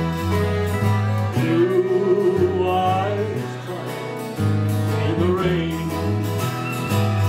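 Small country band playing live: strummed acoustic guitars over a stepping bass line, with a lead melody that bends and wavers in pitch.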